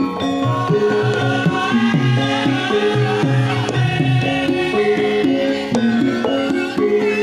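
Javanese gamelan music for lengger dance: metallophones ring out a repeating melody over kendang hand-drum strokes whose low notes slide in pitch, with a voice wavering above them in the middle.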